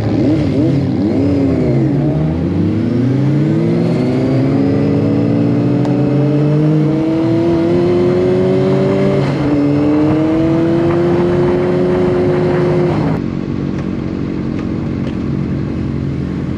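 Sport motorcycle engine under acceleration: the pitch wavers up and down at first, then climbs steadily for several seconds, dips once about nine seconds in as a gear changes, climbs again, and drops off abruptly about thirteen seconds in as the throttle closes.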